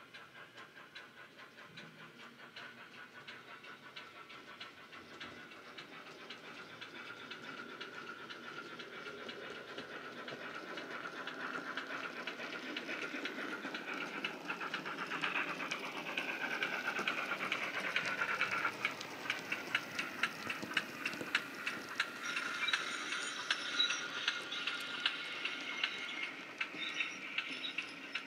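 Sound from a LokSound nano DCC decoder in a Heljan OO-gauge Class 13XX pannier tank: steam exhaust chuffs from its small speaker, with the fast clicking of the train's wheels on the track. It grows steadily louder as the train draws near over the second half.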